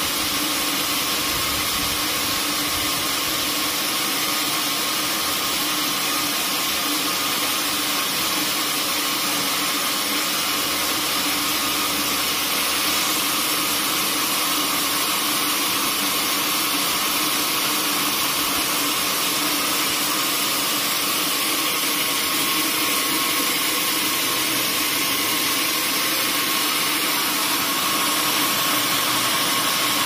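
Band sawmill running steadily, its motor and spinning band blade making a constant mechanical hum and hiss.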